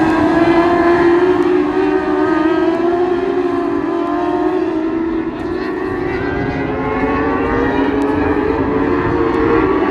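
Several dwarf race cars' motorcycle engines running at high revs as the pack laps the track, a steady high-pitched whine that sags a little around the middle and climbs again toward the end.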